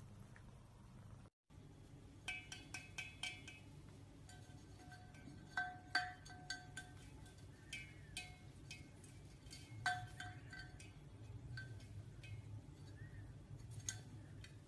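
Small metal bell tinkling in irregular clusters of light strikes, each ringing briefly at the same few pitches, over a faint low hum.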